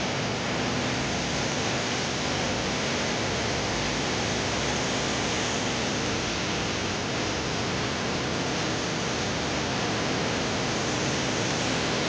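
Steady, unbroken rush of flowing spring water.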